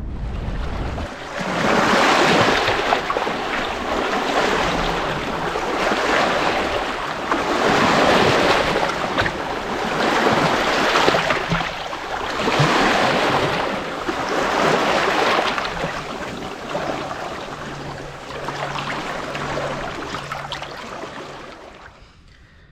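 Small waves of the fast-rising tide washing over the muddy shore, swelling and falling back about every two to three seconds. A low wind rumble on the microphone is heard in the first second.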